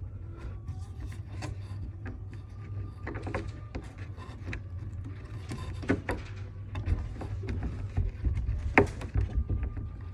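Irregular knocks and clicks of bed-frame parts and hardware being handled and fitted during assembly, over a steady low hum.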